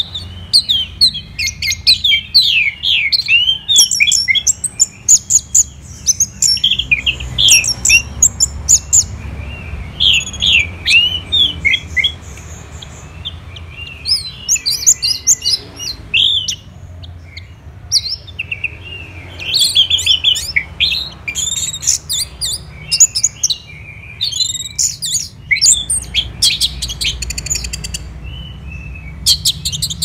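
Orange-headed thrush (anis merah) singing a long, varied song of rapid, high twittering and whistled notes, delivered in bursts of a few seconds with short pauses between them.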